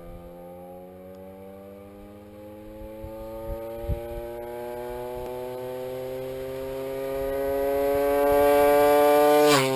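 Small engine of a gas-powered stand-up scooter approaching at speed: a steady buzz that grows much louder and slowly rises in pitch, then drops sharply in pitch near the end as the scooter passes by.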